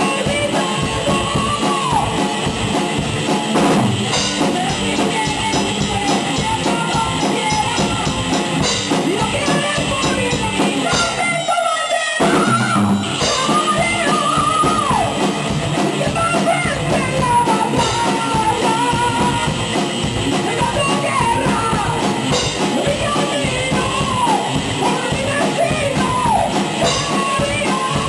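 Rock band playing: a drum kit keeps a steady beat under bass and electric guitars, with melodic lines bending up and down in pitch over the top. About twelve seconds in, the drums and bass drop out for a moment before the full band comes back.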